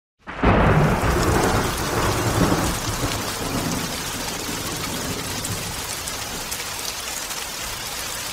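Thunderstorm: a rumble of thunder at the start, then steady rain hissing.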